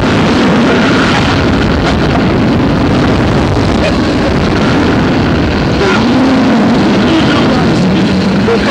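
Loud, steady rush of air buffeting the microphone of an onboard camera on a reverse-bungee ride capsule as it flies and swings through the air.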